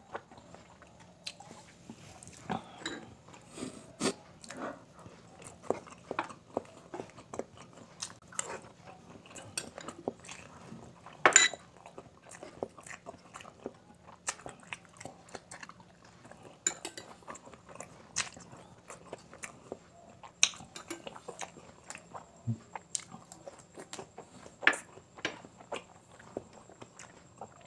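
Close-up chewing and crunching of quail balut: a steady run of short wet mouth clicks and crunches. About eleven seconds in comes one louder, ringing clink of a metal spoon.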